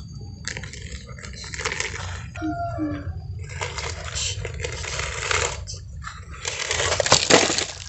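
Plastic toy excavator's bucket scraping and digging through a pile of damp, dark sand, in several rough stretches. The longest comes near the middle and another near the end.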